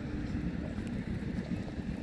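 Outdoor ambience: a steady low rumble of wind on the microphone, with a constant low-pitched hum underneath.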